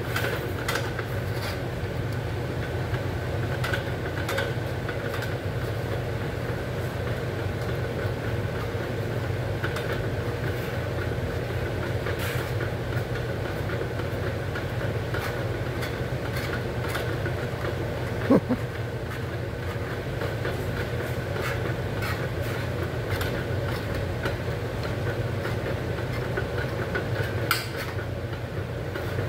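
A steady low machine hum with a few scattered metal clicks and clanks, from a foot-operated sheet-metal shrinker-stretcher being stomped to stretch a panel. There is a brief squeak about two-thirds of the way in.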